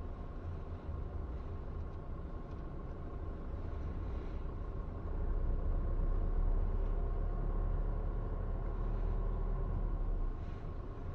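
A car's engine and tyres running at low speed, heard from inside the cabin as a steady low rumble. The rumble grows louder about five seconds in and eases again near the end.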